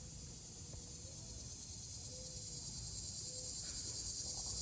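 Insects chirring in a steady, high-pitched trill that grows gradually louder.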